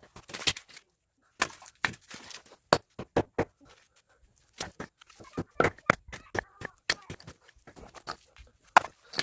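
Firewood being broken up: a string of sharp, irregular knocks and cracks of wood, some of them loud, with short pauses between.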